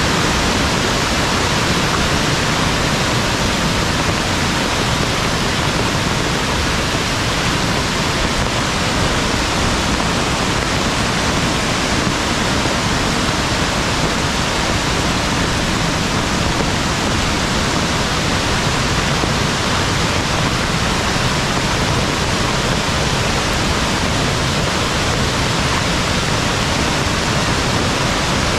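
Steady, loud rush of a mountain valley stream in heavy rain.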